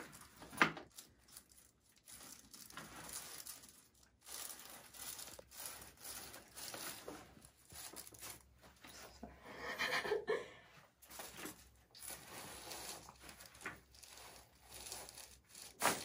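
Quiet rustling of fabric and hands shifting a patient's head and neck on a chiropractic table as the neck is set up for an adjustment, with one sharp click about half a second in and a louder rustle around ten seconds in.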